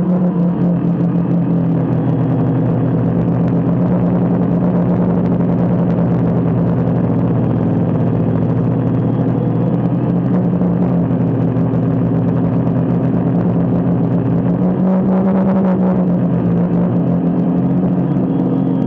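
DJI Phantom quadcopter's motors and propellers buzzing steadily, heard close up from the camera mounted on the drone. The pitch shifts a little about fifteen seconds in as the motors change speed.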